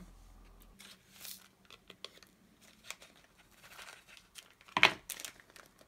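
Small plastic bags of square resin diamond-painting drills crinkling and the drills clicking lightly as they are handled. About five seconds in comes one sharp, louder clatter as drills drop into a small plastic pot.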